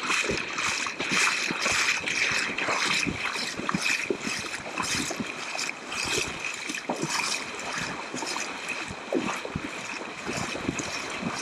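Irregular small splashes and drips of seawater over a steady hiss of wind and surf.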